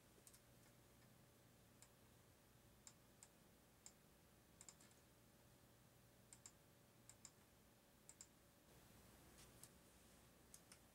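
Faint computer mouse clicks, scattered single clicks and quick double clicks, over a low steady hum.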